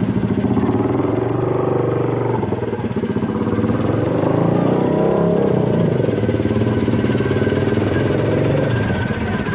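Motorcycle engines running loudly, revving up and down in pitch, most of all in the middle stretch.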